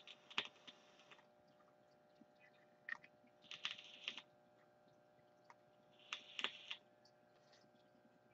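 Mostly near silence, broken by three small clusters of faint clicks and short hisses about three seconds apart: a person vaping, drawing on an electronic cigarette mod and blowing out vapour.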